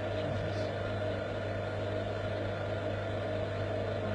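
Vacuum pump running with a steady hum, pulling a vacuum on a flask of water so that the water boils and freezes at the same time.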